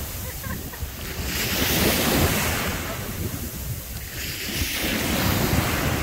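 Small waves breaking and washing up a sandy beach in two swelling surges, about three seconds apart, with wind rumbling on the microphone.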